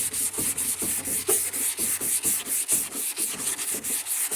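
180-grit sandpaper on a hand sanding block rubbing back and forth over cured plastic body filler, about two strokes a second. This is the final fine-sanding stage that smooths the filler for paint.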